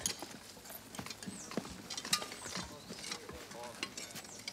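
Irregular knocks and clatter of men moving about and handling gear in sandy trenches, with faint voices in the background and a few short high chirps.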